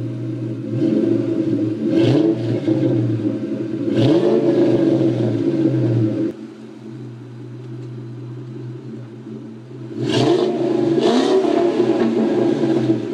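2002 Ford Mustang GT's 4.6-litre V8 idling through its exhaust and being revved: quick throttle blips about one and two seconds in, a longer rev from about four to six seconds, back to a steady idle, then revved again from about ten seconds in.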